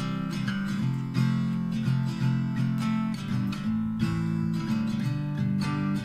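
Background music: a strummed acoustic guitar with regular chord strokes.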